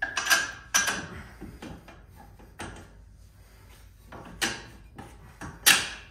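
Metal suspension parts clunking and scraping as a coilover assembly is slid and knocked into place: two knocks close together at the start, single knocks a couple of seconds apart, and the loudest near the end.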